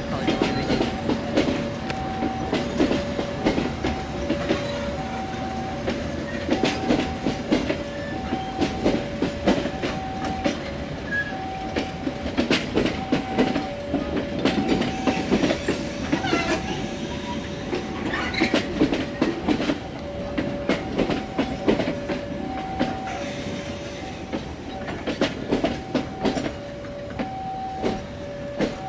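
Passenger coaches rolling slowly past during shunting, their wheels clacking irregularly over rail joints. A steady two-tone beep alternates evenly in the background.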